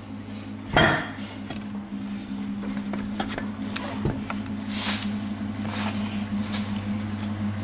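Metal clanks and scrapes from the steel halves of a torque converter being handled on a workbench. There is one loud clank about a second in, then a few lighter clinks and short scraping sounds.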